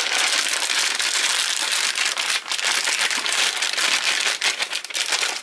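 A plastic vacuum-sealer bag crinkling and crackling continuously as hands fold its open end back, turning it inside out.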